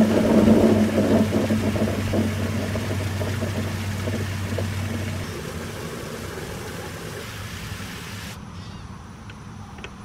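An engine running with a steady low hum, fading gradually; the hum drops away about halfway through, and two faint clicks come near the end.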